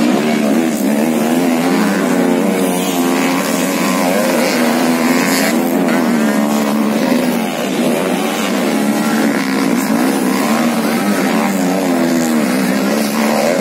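Several motocross bikes' engines revving together as the riders race over the track, the pitch of each rising and falling with the throttle.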